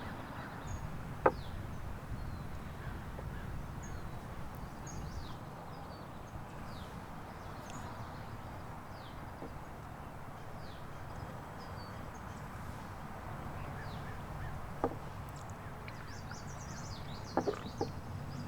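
Small birds chirping over and over in short, high, falling calls, over a steady outdoor background noise. A few sharp knocks come about a second in, about three-quarters through, and twice near the end.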